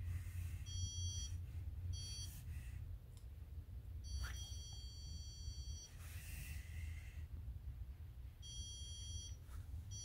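Handheld electronic stud finder beeping as it is slid across a drywall wall, signalling a stud underneath. Four beeps of one steady electronic tone: one at about a second in, a short one at two seconds, a long one of nearly two seconds starting about four seconds in, and another near the end.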